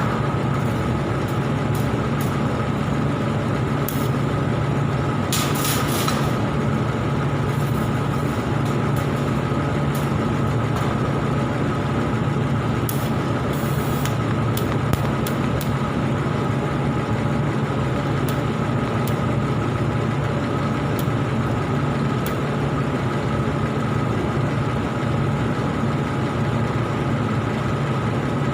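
Steady buzzing hum of argon (TIG) welding equipment, with a thin high whine above it, scattered faint ticks, and two short hisses about five and thirteen seconds in.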